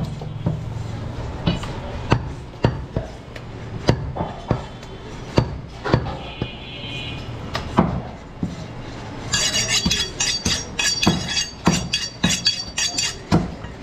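Cleaver chopping goat meat and bone on a chopping block: sharp blows at an irregular pace, one or two a second. About two thirds of the way in, a run of rapid metallic clinking and scraping joins the blows.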